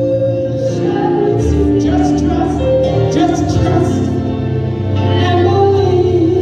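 Gospel song in progress: singing with long held, wavering notes over a steady accompaniment.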